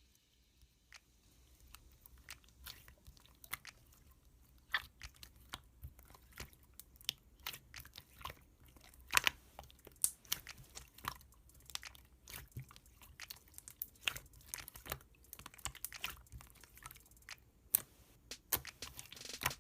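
Slime being squeezed and poked by hand, making irregular sharp clicks and pops, several a second.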